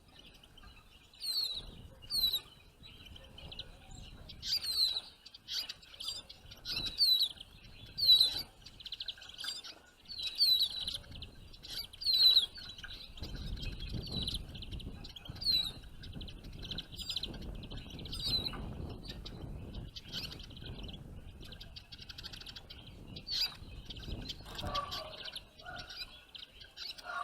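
Small songbirds chirping: clusters of short, quick downward-sliding chirps over a steady high twitter, with a faint low wind rumble in the middle stretch.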